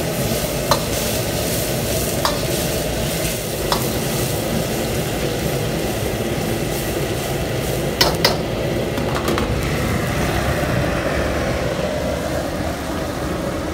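Metal ladle stirring butter melting and sizzling in a stainless steel wok, with a few sharp clinks of the ladle against the wok, the loudest a close pair about eight seconds in. A steady low rumble runs underneath.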